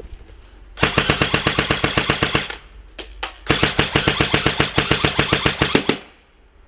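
Airsoft rifle firing on full auto: a rapid burst of nearly two seconds, two single shots, then a longer burst of about two and a half seconds.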